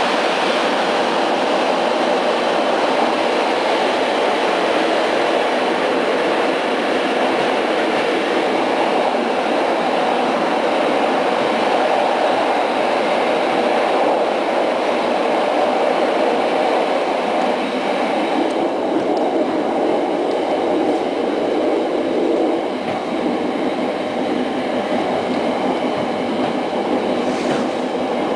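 Inside a passenger carriage of a locomotive-hauled train running at speed through a railway tunnel: steady, loud rolling noise of wheels on track. The upper hiss thins out about two-thirds of the way through.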